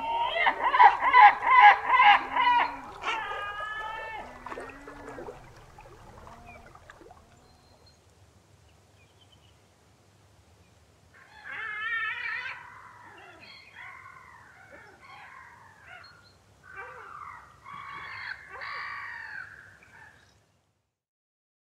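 Great black-backed gulls calling. A rapid run of loud, harsh calls comes first and tails off over several seconds. After a short pause, quieter bursts of calls follow.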